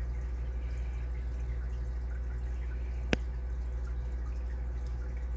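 Small metal clicks from deadbolt parts being handled and worked with a tool: one sharp click about three seconds in and a fainter one near the end, over a steady low hum.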